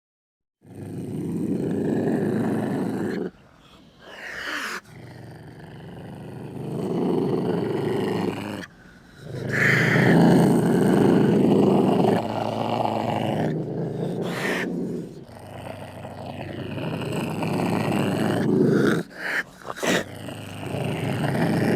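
Ocelot growling and snarling: a run of rough, low growls of uneven length with short breaks between them, some swelling louder, and two brief snarls near the end.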